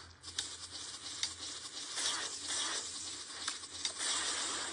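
Faint crackly rustling with light irregular taps as a kitten paws at a smartphone screen held in someone's hands.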